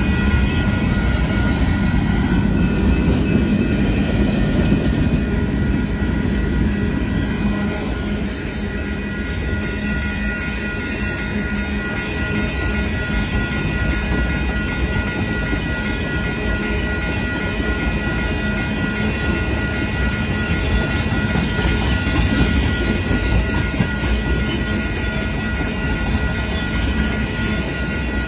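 Union Pacific manifest freight train's cars rolling past close by: a steady rumble of steel wheels on the rails, with a few thin, steady high tones riding over it.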